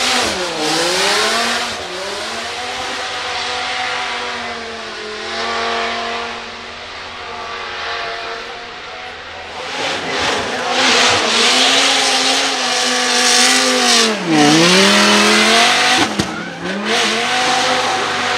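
Twin-turbocharged 8.3-litre V10 of a Dodge Viper SRT10 drift car, revs swinging up and down hard and plunging sharply twice, right at the start and about fourteen seconds in. From about ten seconds in, tyres squeal loudly as the car drifts.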